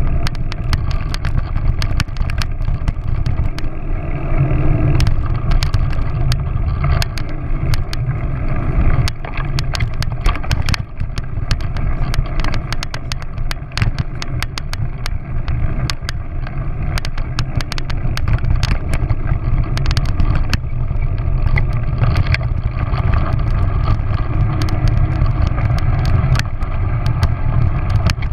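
A ride along a rough dirt track recorded on a mounted action camera: a steady low rumble of movement with frequent sharp knocks and rattles from the bumpy ground.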